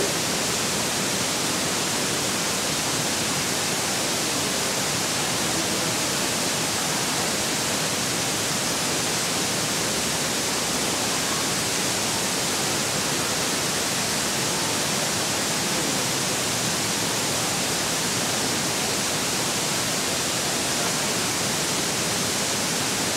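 Waterfall rushing: a steady, even noise of falling water that does not change.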